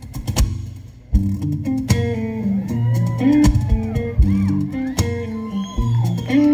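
Live acoustic folk band starting a song about a second in, after a few scattered knocks: banjo and guitar picking over an upright bass line.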